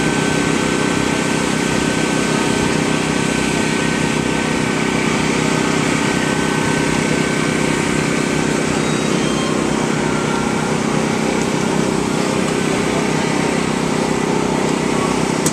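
An engine drone running at one steady speed throughout, with no revving.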